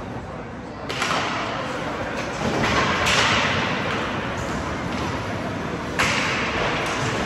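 Ice hockey play in an echoing indoor rink: two sharp bangs, about a second in and near the end, each ringing on in the hall, with a hissy clatter of sticks, puck and skates on the ice between them.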